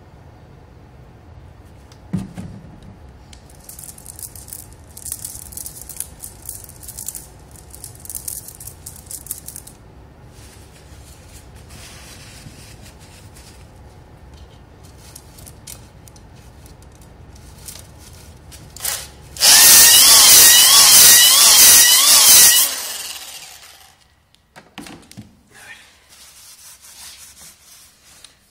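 Drill spinning a ball-type flex hone in the cylinder bores of a Volvo T-5R five-cylinder engine block, the abrasive balls rubbing and scraping on the bore walls. About two-thirds of the way through it runs much louder for about three seconds, with a wavering motor whine, then winds down and stops.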